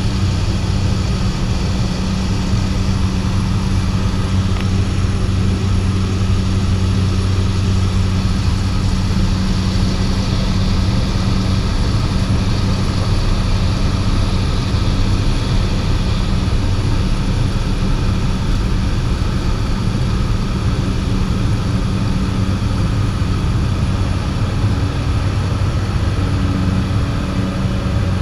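The Pratt & Whitney PT6A turboprop of an amphibious Cessna 208 Caravan running at takeoff power, heard from inside the cabin: a loud, steady low propeller drone with a thin high whine above it.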